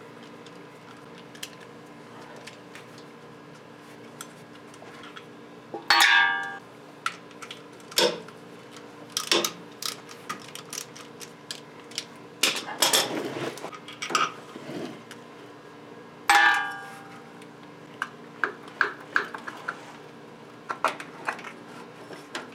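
Hand tools working on metal engine parts while the AC bypass pulley is being unbolted: scattered clicks and taps, with two ringing metallic clinks about 6 and 16 seconds in, over a steady low hum.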